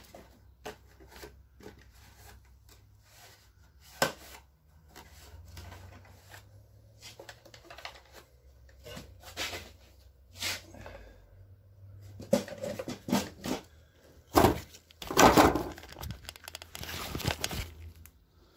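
Hard plastic Land Rover airbox being handled and its intake snorkel worked off: scattered plastic knocks and clicks, with a louder stretch of tearing and scraping from about fourteen to seventeen seconds in as the snorkel comes free.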